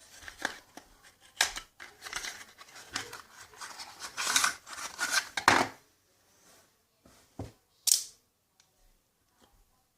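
A run of short, sharp clicks and scrapes, like something small and hard being handled, for the first six seconds. Two single louder clicks follow about a second apart, then it goes quiet.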